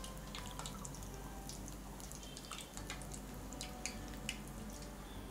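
Hot oil faintly crackling and popping around a batch of bondas deep-frying in a steel kadai, with scattered irregular pops.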